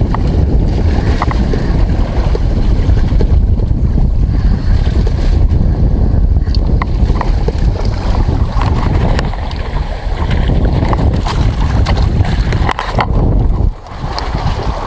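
Strong wind buffeting the microphone: a loud, uneven, gusting rumble, with a few faint clicks and taps over it. The wind dips briefly near the end.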